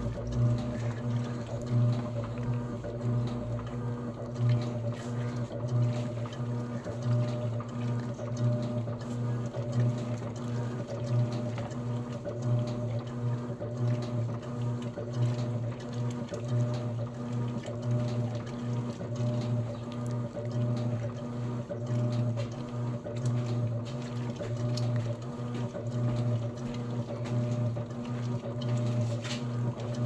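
Electrolux Essential Care 11 kg top-loading washing machine agitating a load in soapy water: a steady motor hum with water sloshing, swelling and easing in a steady rhythm with the back-and-forth strokes of the agitator.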